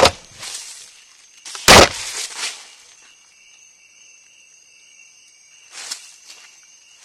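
Two loud knocks as an African forest elephant strikes the trap camera, one right at the start and one about two seconds in, each followed by rustling. Then faint, steady insect calls.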